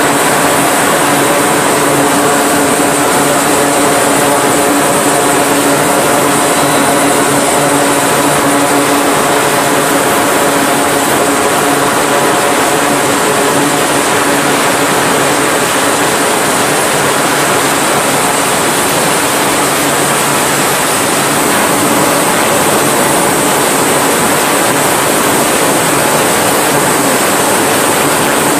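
Twin T56 turboprop engines of an E-2 Hawkeye running with propellers turning: a loud, steady drone with several held tones over a continuous rushing hiss.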